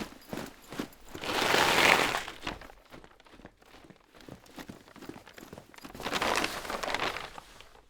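Foley sound effects: scattered light knocks and crinkles, with two swells of rushing noise, the first about a second in and the louder-sounding second near the end.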